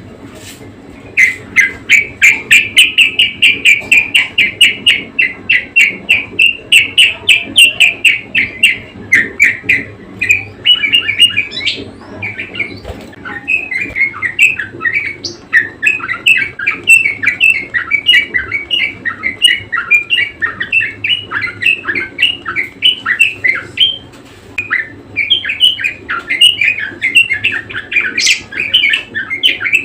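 Budgerigar warbling and chattering nonstop in a fast run of short, high chirps, starting about a second in with only brief pauses.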